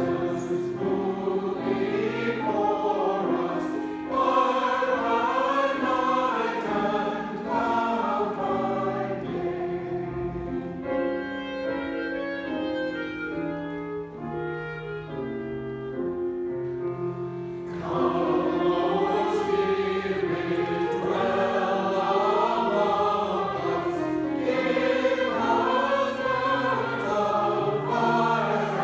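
Mixed church choir singing a hymn-anthem, accompanied by piano and clarinet. From about ten seconds in, the singing gives way to a quieter stretch of steady held notes, and at about eighteen seconds the choir comes back in louder.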